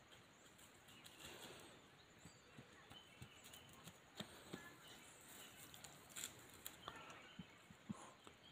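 Near silence: faint outdoor ambience with scattered soft ticks and a few faint short chirps.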